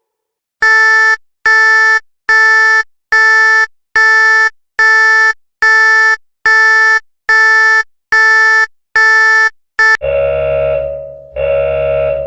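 Electronic alert tone of a mock emergency broadcast: about eleven identical loud pitched beeps at a bit over one per second, the last one cut short. Then two longer, lower, buzzing tones, the second running past the end.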